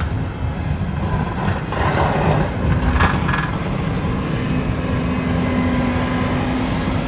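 Street traffic noise: a vehicle running past, with a steady hum from about midway through.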